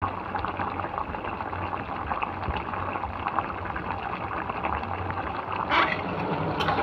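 A thin curry of yardlong beans, potato and dried fish simmering hard in a kadai: steady bubbling with dense small pops over a low hum. There is a short, louder noise near the end.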